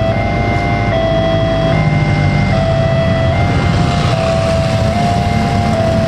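Railroad level-crossing warning alarm sounding a two-tone electronic chime that switches pitch about every 0.8 seconds. Under it is the running engines of idling motorcycles and cars. The uploader says this crossing's barrier and train sensor are broken.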